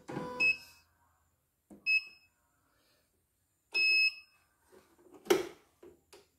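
Control-panel beeps of a CNY computerized embroidery machine as its buttons are pressed: three single-pitch electronic beeps, the first two short and the third longer, each with a faint button click. A sharp knock comes near the end.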